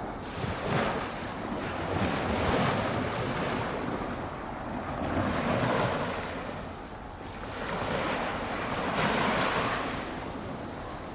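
Small waves on a flat calm sea breaking gently at the shore, a rushing wash that swells and fades every few seconds.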